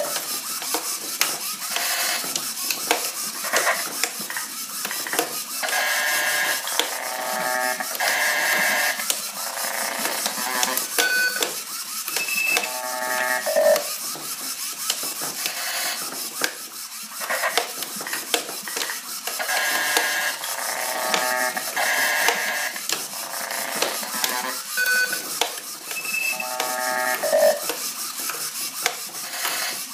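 Whirring, rattling motor of a knife-wielding tentacle toy flailing out of its box, over a loop of glitchy electronic tones from a Bastl Microgranny sampler that repeats about every fourteen seconds.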